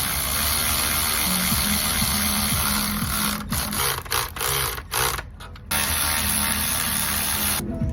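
Background music with a stepping bass line, cutting out in several short gaps about halfway through before resuming.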